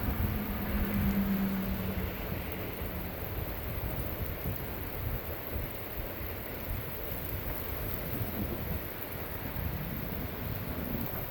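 Torrential rain pouring down in a severe thunderstorm, a steady dense hiss with low rumbling underneath. A faint steady hum sounds for the first few seconds and then fades out.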